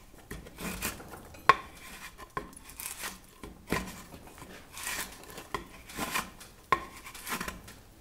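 A sharp hand-forged steel garden trowel shaving curls off the edge of a wooden board in a vise: about six short scraping strokes, with sharp knocks among them, the loudest about one and a half seconds in.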